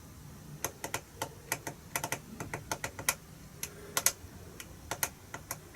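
Buttons on a FrSky Taranis radio transmitter clicking in an irregular run of a few presses a second, as a rate setting is stepped down.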